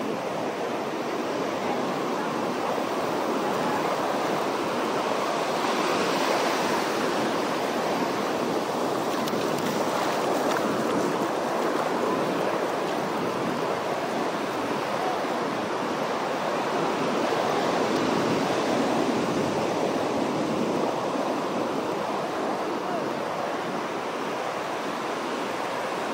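Ocean surf breaking and washing up on a beach: a steady rush of waves that slowly swells and eases.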